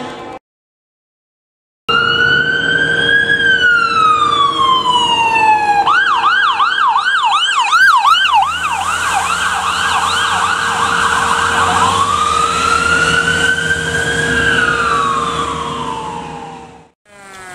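Ambulance electronic siren passing by: a slow rising-and-falling wail, then a rapid yelp for several seconds, then back to a wail. The vehicle's engine and tyre noise are heard as it goes past, and the siren fades as it drives away. It begins abruptly after a short moment of silence.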